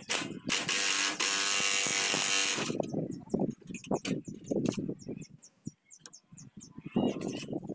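Cordless impact driver running for about two seconds on a bolt at a kuliglig hand tractor's pulley housing, then stopping. Scattered short, softer sounds follow.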